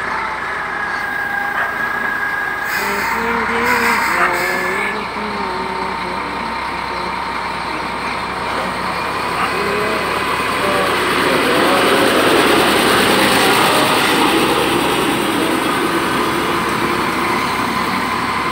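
Heavy diesel truck and wheel-loader engines running, growing louder for a few seconds past the middle. About three to four and a half seconds in come a few short hissing bursts, like air being let out of brakes.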